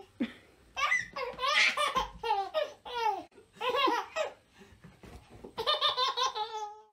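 A toddler laughing: a long run of high-pitched belly laughs and giggles from about a second in to about four seconds, then another burst of laughter near the end.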